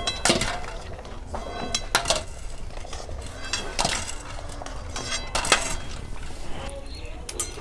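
Steel spoon clinking against a metal pan and steel bowl as hard-boiled eggs are scooped out of hot water and dropped into the bowl: several sharp clinks a second or two apart, each with a short ring.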